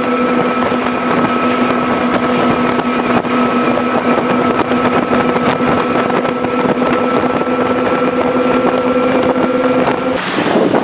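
Twin Mercury 400R Racing outboards running flat out at a steady, high pitch, with a heavy rush of wind and water. Near the end the engine tone drops away, leaving only wind and water noise.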